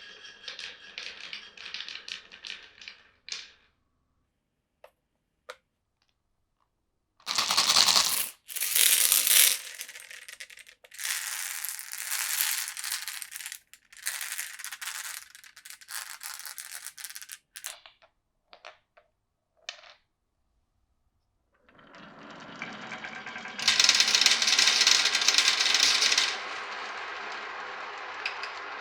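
Marbles rolling and clattering down a wooden and plastic marble run, with runs of rapid clicking and rattling and short silent gaps between them. The loudest bursts come about a quarter of the way in and again near the end.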